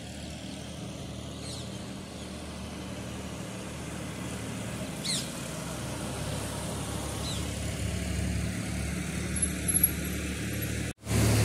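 Steady low engine hum, slowly growing louder, with a few short high falling chirps over it. The sound cuts out for an instant near the end.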